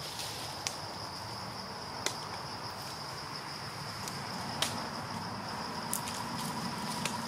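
A steady, high-pitched insect drone, with five sharp clicks scattered through it.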